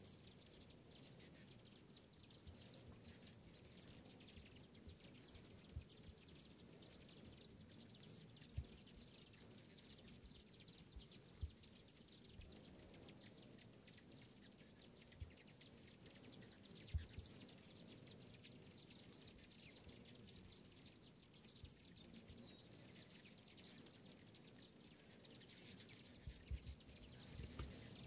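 Steady high-pitched chorus of insects at dusk, a continuous shrill drone with a slight waver.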